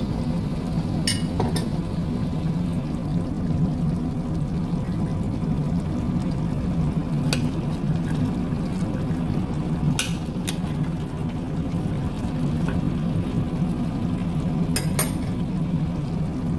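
Pork adobo simmering in a stainless steel pot over a steady low hum, with a spoon stirring it and clinking sharply against the pot several times.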